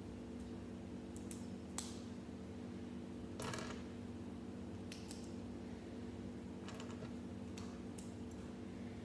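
Plastic Lego bricks being pressed together by hand: a few sharp clicks, the sharpest about two seconds in, and a short scraping rustle about three and a half seconds in, over a steady low hum.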